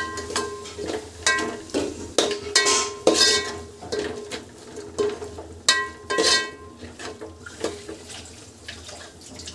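Steel spoon stirring a thick vegetable masala in a metal pot, scraping and knocking against the pot's sides in irregular clanks, each leaving the pot ringing briefly.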